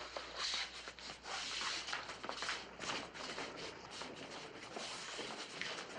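Shuffling footsteps and clothing rustle of a group of people moving across a floor together: an uneven, continuous scuffing with no voices.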